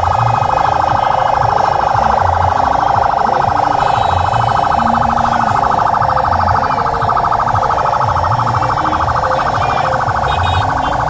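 Vehicle siren sounding without a break in a fast, even warble that stays at one pitch.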